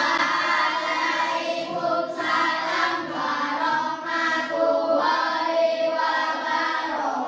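A group of children singing together in unison, in sustained phrases broken by short breaths.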